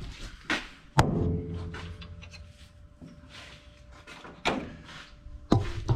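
A heavy metal door slams shut about a second in, leaving a ringing hum that fades over the next two seconds. A few lighter knocks follow near the end.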